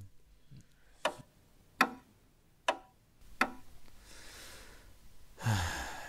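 Four sharp clicks spaced less than a second apart, then a person's loud breathy sigh that falls in pitch near the end.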